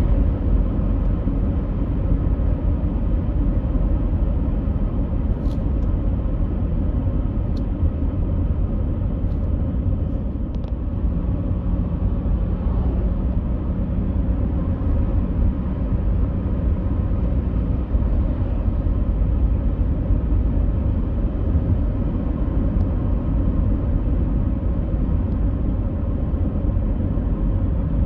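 A steady low rumble with a faint hum over it and a few faint clicks in the first half.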